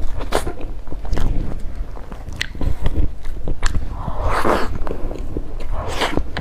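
Close-miked eating sounds: a person biting and chewing food, with many small wet clicks and two louder, longer bites or chewing bursts about four and a half and six seconds in.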